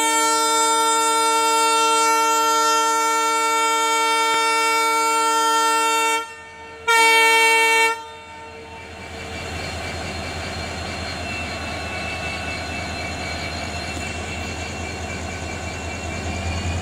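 Tutari Express locomotive's horn sounding a long multi-tone chord, then after a brief break a second short blast: the departure signal. Afterwards the locomotive's steady low running hum as the train moves off, growing louder near the end.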